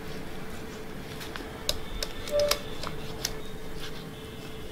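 Kitchen knife slicing raw boneless chicken breast on a wooden cutting board: several light, irregular clicks as the blade meets the board, over a faint steady hum.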